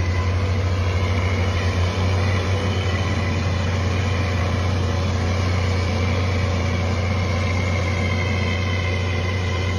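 An engine idling steadily with a low, even drone.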